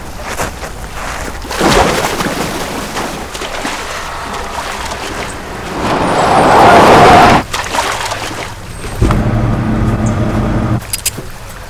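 A loud rush of noise swells and cuts off sharply about halfway through. Then a Jeep Wrangler's engine runs with a steady low rumble.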